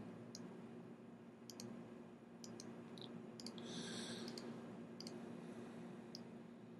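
Faint, scattered clicks of a computer mouse, about ten of them, with a short hiss about four seconds in, over a low steady electrical hum.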